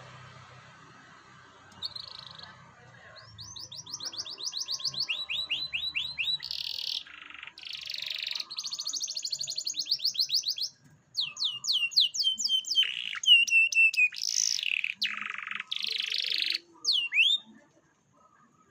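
Canary singing a long song of fast trills and buzzy rolls, the notes repeating many times a second and changing pitch from phrase to phrase, stopping shortly before the end.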